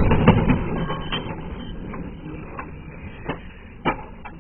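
The tail of a car crash inside the cabin, through the dashcam's microphone: the impact noise dies away over the first second or so, then a few sharp clicks and knocks as the car and loose things in it settle.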